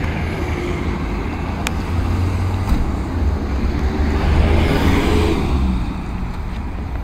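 Highway traffic passing close by: a steady low rumble, with one vehicle swelling past about four to five seconds in. A single sharp click comes near two seconds in.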